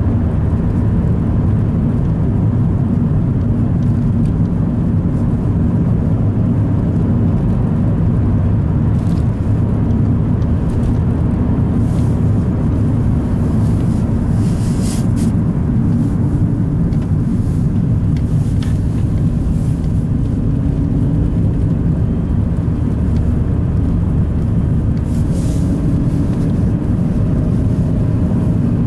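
Car driving on a snowy road, heard from inside the cabin: a steady rumble of engine and tyres. A few brief ticks break in now and then.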